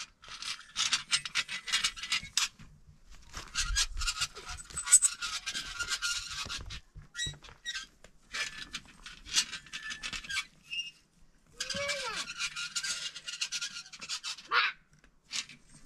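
Stone roller being worked back and forth over packed earth by its iron handle: rapid squeaking and scraping in spells of a couple of seconds, with short pauses between strokes.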